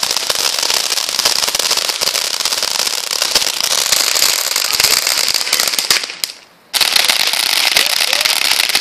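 Ground fountain firework spraying sparks with a dense, hissing crackle. It drops away briefly about six seconds in, then starts again abruptly.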